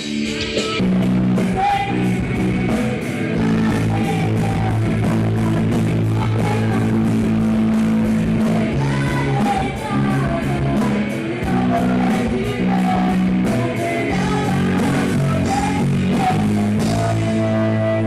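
Live hardcore rock band playing: a woman singing into a microphone over distorted electric guitar and bass chords and fast, steady drumming.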